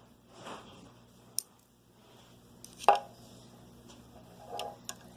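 Steel combination wrenches being handled: a soft shuffle, a sharp tick, then a loud single clack about three seconds in, with more shuffling and light clicks near the end.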